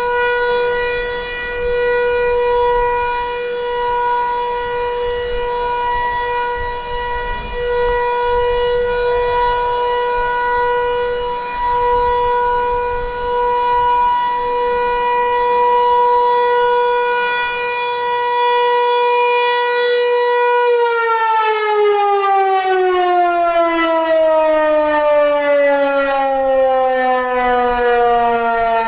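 Federal Signal 508-128 rotating single-tone outdoor warning siren sounding its steady Alert tone. About twenty seconds in it winds down, its pitch sliding steadily lower as the Alert signal ends.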